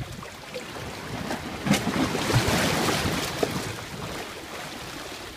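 Seawater surging and washing through the gaps between concrete tetrapod blocks of a breakwater: a rushing hiss that swells up about two seconds in, then eases off.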